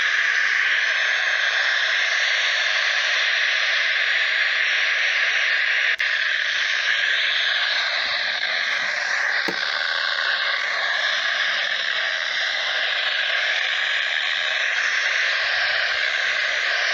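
Radio static: a steady, loud hiss from a receiver on a weak or empty channel, with faint wavering whistles running through it. There are two short clicks, the first about six seconds in and the second a few seconds later.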